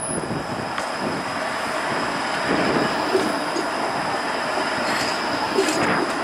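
Bombardier Flexity Outlook streetcar rolling past close by on curved track, a steady running noise with a few sharp clicks from the wheels on the rails.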